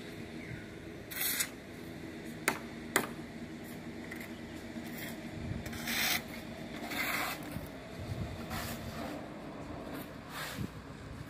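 Shovels scraping across a concrete surface in short, repeated strokes while mortar is mixed, with two sharp clicks half a second apart about two and a half seconds in.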